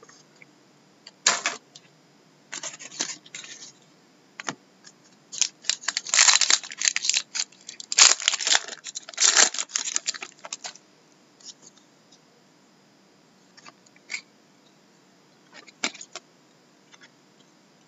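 Shiny trading-card pack wrapper crinkling and tearing as it is ripped open by hand, in a dense run of rustles about halfway through, with a few lighter rustles and ticks of cards being handled before and after.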